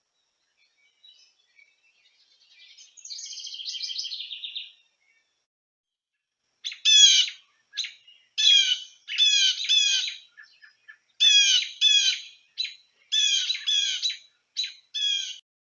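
A songbird calling: a faint buzzy trill a few seconds in, then loud sharp chirps in quick clusters from about seven seconds in.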